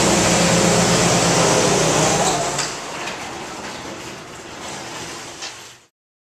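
A garage door rumbling along its track on the electric opener, with a vehicle engine running during the louder first part. The rumble drops about two and a half seconds in, carries on more quietly with a few clicks, and cuts off abruptly just before the end.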